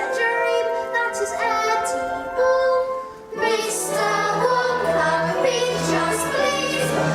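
Musical-theatre pit orchestra playing with voices singing. A little over three seconds in, after a brief drop, the music swells into a fuller passage over a held bass note.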